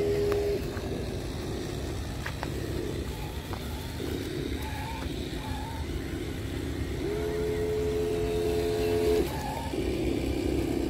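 Scale RC off-road truck's electric motor and gears whining at a steady pitch, at the very start and again for about two seconds from seven seconds in, with a steady low rumble under it throughout.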